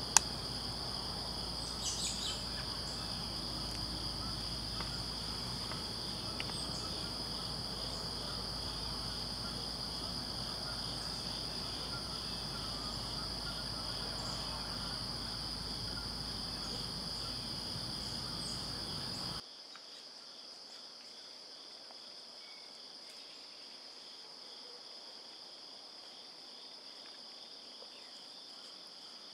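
Chorus of crickets and other insects in woodland: a steady high-pitched trill with a pulsing lower trill beneath it. A single sharp click sounds just after the start. About two-thirds through, the low background rumble drops away while the insects carry on.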